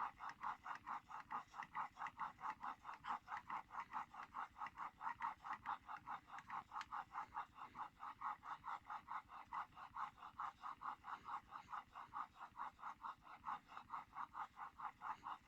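Steel kanna plane blade in a honing jig pushed back and forth over a wet waterstone: an even rhythm of short scraping strokes, about four a second. These are honing strokes on the bevel after a burr has already formed on the back.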